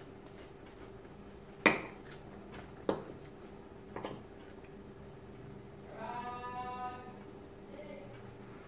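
A metal fork clinks against a ceramic salad bowl three times, the first clink the loudest. About six seconds in comes a high, drawn-out vocal "mmm" lasting about a second, over a steady low hum.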